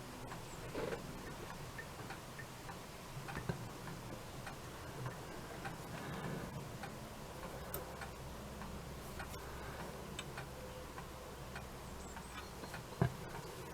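Faint, unevenly spaced light ticks and clicks of small metal parts and tools handled at a clock-repair bench over a steady low hum, with one sharper click near the end.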